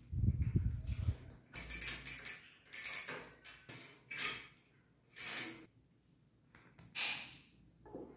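Bicycle roller chain rattling and clinking in short, irregular bursts as it is handled and fed around the chainring and frame, with a low thump in the first second.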